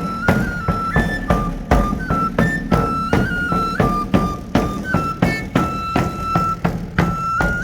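Pipe and tabor (flauta y tamboril) playing a traditional folk tune: a high whistle-like pipe melody stepping between a few notes over a steady drum beat of about four strokes a second.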